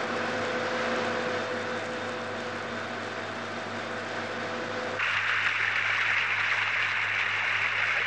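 Steady noise of oil drilling rig machinery, with a few steady hum tones under it; a louder hiss cuts in about five seconds in.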